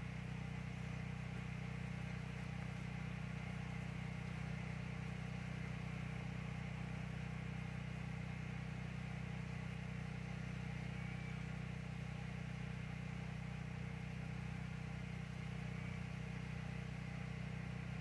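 An engine running at a steady speed: an even, low drone that does not change in pitch.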